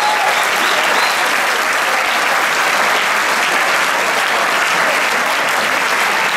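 A large hall audience applauding, a dense, steady clapping that neither swells nor fades.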